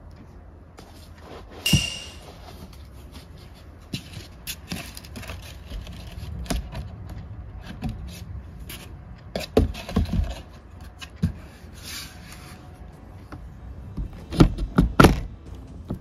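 A sharp click with a short high beep, typical of a small ceramic heater's power switch, then scattered clicks, rustling and scraping as someone moves about in a small wooden cabin. Clusters of louder knocks and thumps come about ten seconds in and again near the end.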